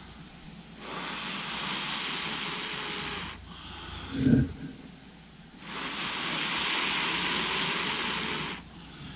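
Two long breaths blown onto a cramp ball fungus (Daldinia concentrica) that a ferro rod spark has lit, coaxing it into a glowing ember. A short low thump comes between the two blows.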